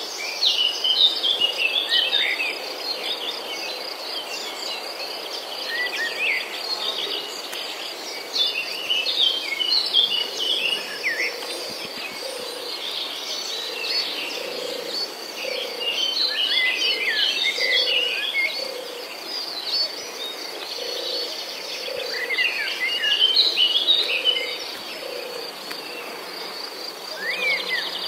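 Birds chirping in bursts of short, high, falling peeps that come and go several times, over a steady high-pitched insect-like buzz.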